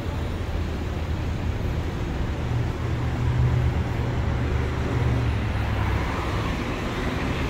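Road traffic on a busy multi-lane city street: a steady low rumble of car engines and tyres, growing a little louder in the second half.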